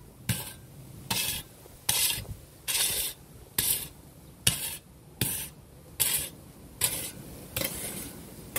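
Metal shovel blade scraping and chopping through dry garden soil in steady, regular strokes, about one a second, as the bed is levelled.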